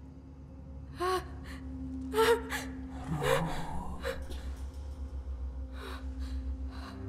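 A young woman gasping in fright: a series of short, voiced gasps and breaths, the loudest between one and four seconds in, over a low steady drone.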